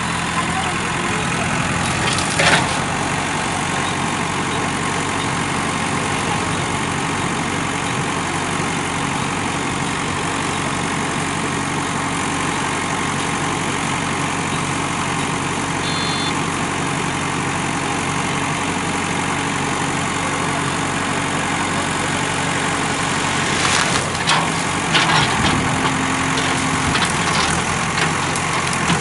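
JCB 3DX backhoe loader's diesel engine running steadily while the backhoe arm works. There is a sharp knock about two seconds in and a run of knocks and cracks near the end as the bucket pulls at a tree.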